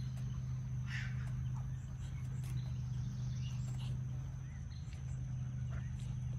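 Outdoor background: a steady low hum throughout, a thin steady high-pitched tone, and a few brief bird chirps scattered through it.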